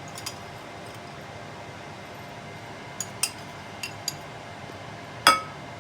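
A utensil clinking against a ceramic dish while food is served: a few light taps, then one louder clink near the end that rings briefly. A steady low hum runs underneath.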